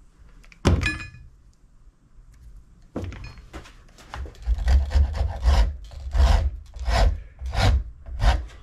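A sharp metallic clink with a brief ring about a second in. From about three seconds, a hand rasp works the wooden axe handle in rough strokes about two a second, shaping the grip.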